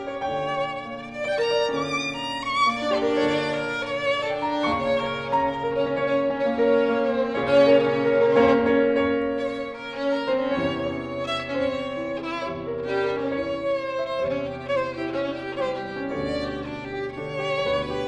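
Violin and piano playing together: the violin sustains long bowed notes with vibrato over lower piano notes, swelling to its loudest around the middle.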